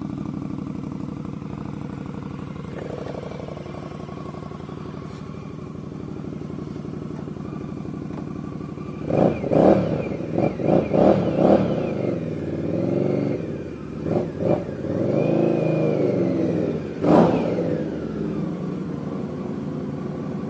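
2018 Indian Scout Bobber's V-twin engine through a Bassani slip-on exhaust, idling steadily. From about nine seconds in, the throttle is blipped several times: a run of quick revs, then a few longer rises and falls, one last sharp rev, and then back to idle.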